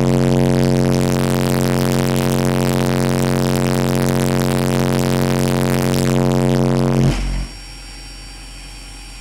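A 45 Hz test tone played loud and steady through two Soundstream XXX 15-inch subwoofers on a Power Acoustik EG1-10000D amplifier driving a 0.5-ohm load, a low drone with strong overtones. The amp is pushed to its clamp point, about 62 volts and 48 amps, and the tone cuts off suddenly about seven seconds in.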